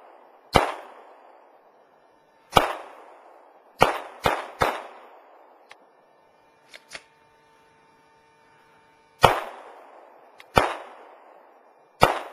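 9mm Glock pistol fired eight times at irregular spacing, each shot trailing off over about a second. Three shots come in quick succession about four seconds in, after a pause of several seconds in the middle.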